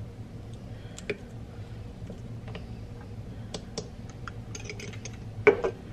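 Scattered light clicks and taps of small plastic kitchen items being handled on a countertop, a medicine syringe and a plastic cup being readied for a dose of honey, with two sharper knocks about five and a half seconds in, over a faint low hum.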